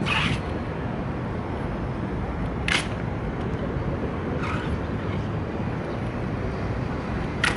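Steady traffic rumble with four sharp clacks a couple of seconds apart: the Evzone guards' hobnailed tsarouchia shoes striking the stone pavement during their slow ceremonial steps.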